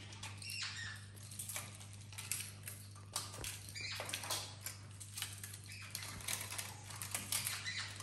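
Irregular light clicks, taps and scratches of an eclectus parrot's claws and beak gripping a rope perch and a wooden branch as it climbs, with a small plastic toy held in its beak knocking about, over a steady low hum.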